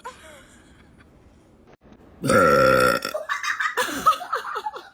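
A person's loud, low-pitched burp about two seconds in, lasting most of a second, followed by a run of short, broken vocal sounds.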